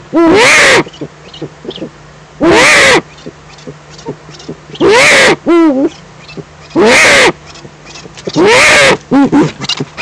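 Eurasian eagle-owl giving loud, hoarse calls, each under a second and rising then falling in pitch, about every two seconds, with a few shorter calls near the end. These are the female's food-begging calls as the male arrives at the nest with prey.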